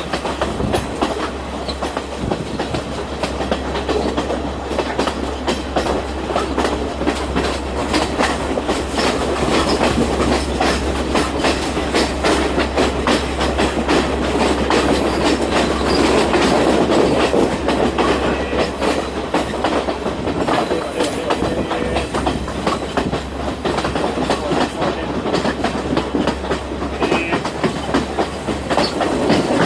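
Passenger train on Sri Lanka's Badulla line running steadily on the track: a continuous low rumble with many wheel clicks over rail joints.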